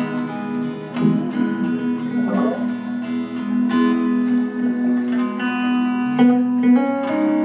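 Live band playing with electric guitars: picked guitar notes ringing over a steady held low note.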